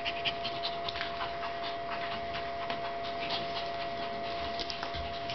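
Dogs panting hard and scuffling as a German Shepherd puppy and a Shih-Tzu play-wrestle, with a quick run of small clicks and rustles throughout.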